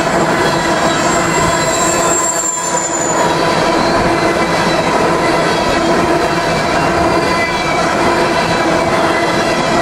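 Empty coal hopper cars rolling past at close range: steel wheels on rail making a steady loud rumble with ringing wheel squeal. A high-pitched squeal fades out about three seconds in.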